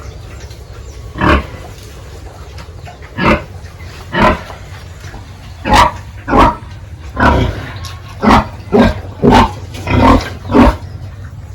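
Pigs calling in about a dozen short, loud, rough bursts, spaced out at first and coming faster in the second half, over a steady low rumble.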